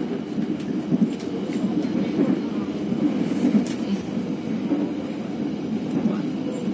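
Steady running noise of an Indonesian economy-class passenger train, heard inside the coach: a continuous rumble of wheels on rails, with a few light clicks.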